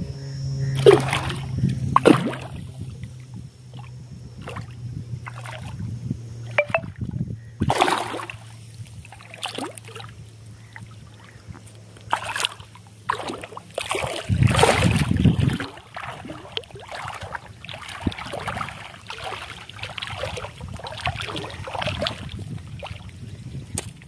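Hooked fish thrashing at the surface in shallow water, irregular splashes and sloshes as it is played on the line, with a heavier splash about halfway through.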